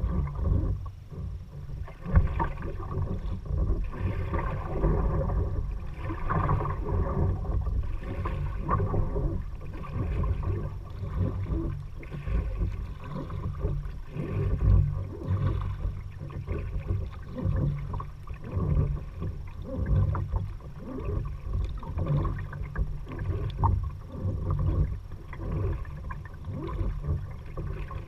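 Kayak paddle strokes: the blades dip and splash in the water in a steady rhythm, about one stroke every two seconds, over a steady low rumble.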